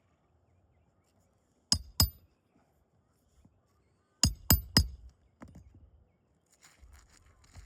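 Sharp metallic taps of hand roofing tools during a shingle repair: two quick strikes, then three more a couple of seconds later and a softer one, followed by faint scraping.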